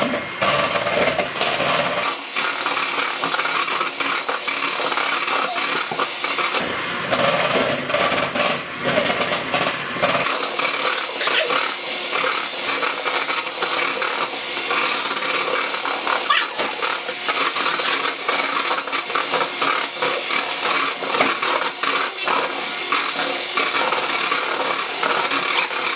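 Electric hand mixer running, its beaters clattering against the bowl as they whip egg whites into meringue.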